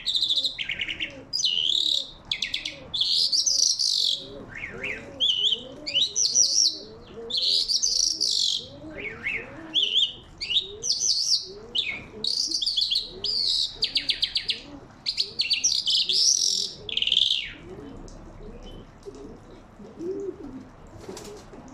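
A songbird sings loud, varied phrases of chirps, quick falling whistles and fast trills, stopping near the end. Underneath, pigeons coo softly and steadily throughout.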